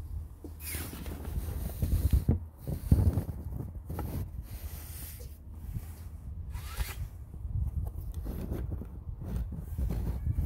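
Handling noise: a nylon puffer jacket rustling and rubbing against the phone's microphone in irregular scratchy swishes over a low rumble.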